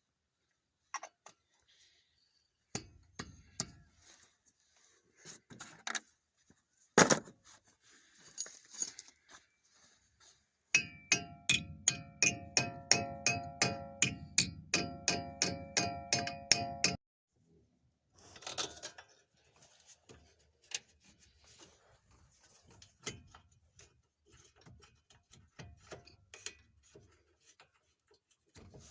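Hand tools working on a pickup truck's front wheel hub: scattered metallic clinks and clanks, one heavy knock about seven seconds in, then an even run of ringing metal strikes, about four a second, for some six seconds in the middle.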